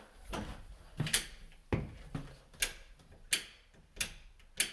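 Wall light switch flipped on and off repeatedly: a series of sharp clicks, roughly one every two-thirds of a second.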